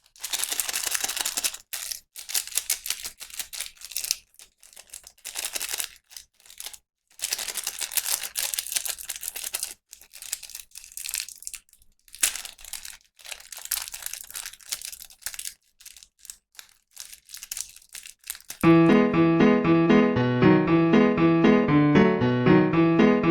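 Packaging being crinkled and torn open by hand in irregular bursts with short pauses. About three-quarters of the way through, electric piano music starts.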